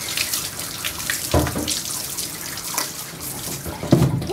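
Water running and splashing in a dog-bathing tub, dripping off a wet dog, with a couple of dull knocks about a second and a half in and near the end.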